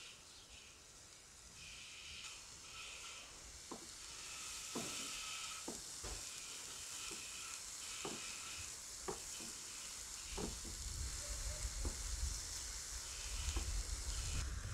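Vegetables sizzling in a grill pan over hot charcoal, a steady high hiss, with a knife making several sharp knocks as it cuts through vegetables onto a wooden board.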